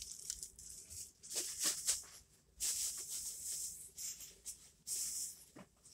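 Rustling and rattling of fireworks packaging being handled, in short irregular bursts.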